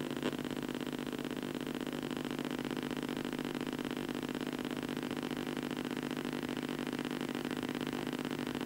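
A steady, unexplained droning hum made of several even tones, strongest in the low-middle range, with a fast fine flutter. It holds unchanged, with one faint click just after the start.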